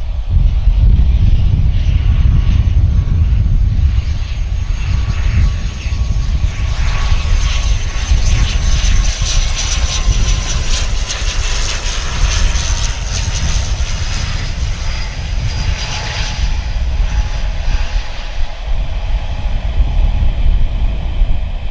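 ATR 72 twin-turboprop airliner passing close on final approach. Its propellers and turbines drone over a steady low rumble, with a whine that slowly drops in pitch as it goes by. The sound is loudest in the middle as it passes nearest.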